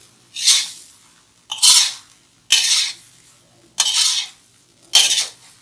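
Metal spatula scraping and scooping through fried rice against the side of a black metal wok, five scrapes about a second apart as the rice is stirred.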